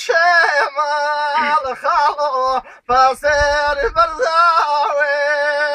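A man singing a Kurdish song in a high voice, alternating long held notes with quick, wavering ornamental turns.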